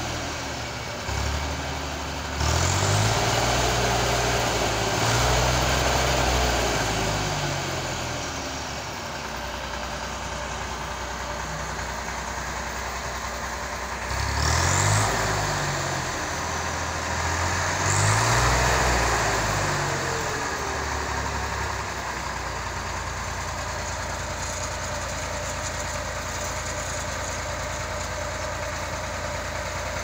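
Farm tractor's diesel engine revving up and down in two bouts, then settling into a steady idle about two-thirds of the way in.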